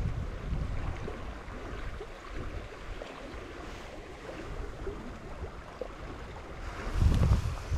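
A creek's current running over rocks, a steady rushing, with wind buffeting the microphone in low rumbles near the end.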